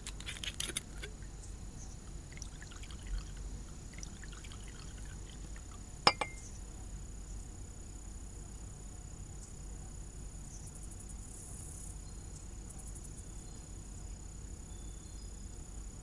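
Light glassy clinks in the first second and one sharp clink about six seconds in, over a faint steady high-pitched hum of insects.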